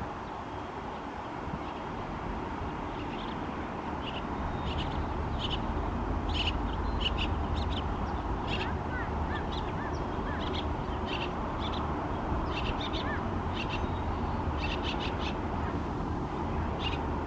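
Many short, high bird calls and chirps over a steady low rumble, starting about three seconds in, with a few brief rising whistles midway.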